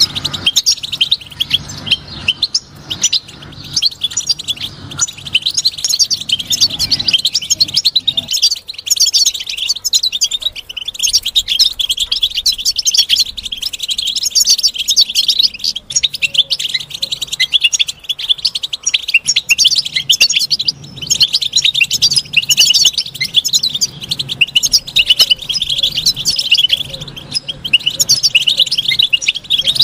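European goldfinch song: a continuous run of rapid, high-pitched twitters and trills.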